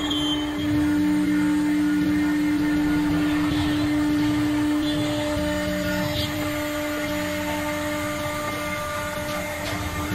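CNC router spindle running at speed with a steady whine while its bit mills a groove through a sheet, the cutting noise rising and falling underneath.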